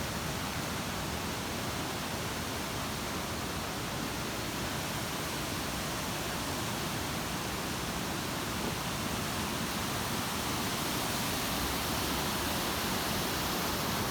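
Waterfall rushing steadily, a constant wash of falling water that grows a little louder near the end.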